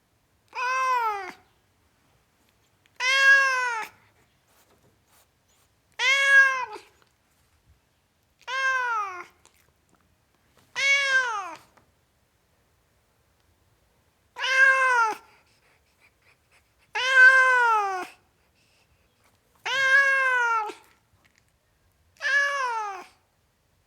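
Tomcat meowing repeatedly: nine separate meows, each about a second long, the pitch rising a little and then falling away, two to three seconds apart.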